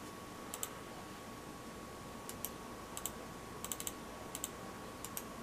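Button clicks of a Philips Momentum wired gaming mouse: about a dozen short, sharp clicks, many in quick pairs, coming at irregular intervals.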